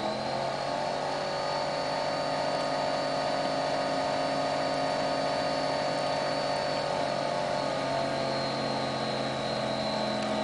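Alesis LX-20 ADAT recorder's tape transport rewinding its S-VHS tape at speed: a steady mechanical whir with a thin high whine above it.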